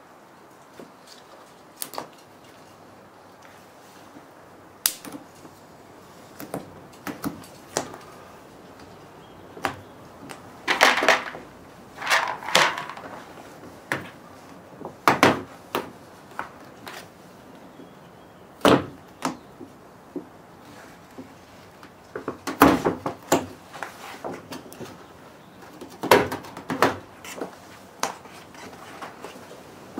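Plastic waterproof barrier being pulled and peeled off the inner sheet metal of a van's sliding door, its black sealant separating. Scattered sharp clicks and knocks, with a few longer rustles about ten to thirteen seconds in.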